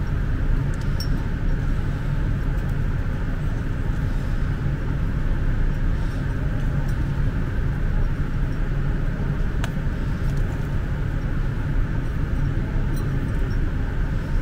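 Steady low rumble of background noise, with a few faint light clicks.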